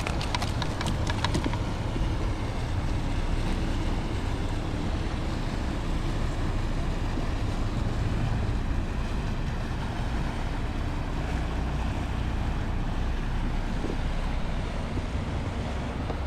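Wind blowing across the microphone on open water, a steady rushing noise with water sounds under it, and a few faint clicks in the first second or so.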